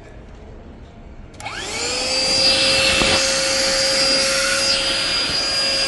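Small handheld vacuum cleaner switched on about a second and a half in: its motor spins up with a rising whine, then runs at a steady high pitch.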